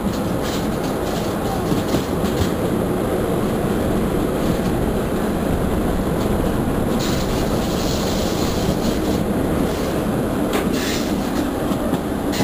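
Passenger train running at speed, heard from an open window on board: a steady rumble of wheels on rail with scattered clicks from the rail joints, and a brief higher hiss about seven seconds in.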